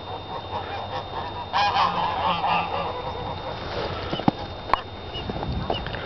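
Waterfowl on the pond calling, a burst of several quick calls about a second and a half in that lasts a second or so. Two sharp clicks follow later, the loudest sounds.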